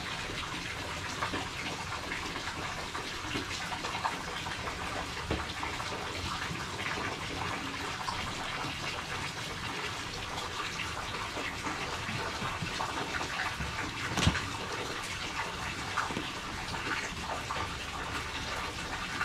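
Kitchen tap running steadily into a sink during dishwashing, with scattered clinks and knocks of dishes; one sharper knock about three-quarters of the way through.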